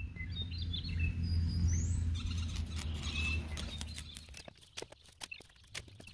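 Birds chirping in a few short calls, one of them a quick rising chirp, over a low steady hum that fades after about four seconds. Scattered light clicks and taps run throughout and grow more frequent near the end.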